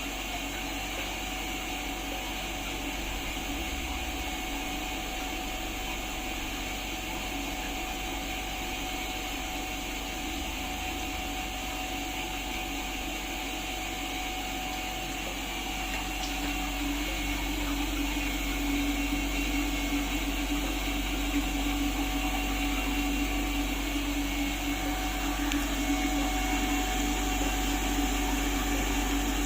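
Centrifugal humidifier running: a steady motor whir with the hiss of spun water mist. About halfway through it grows a little louder and a low steady hum comes in.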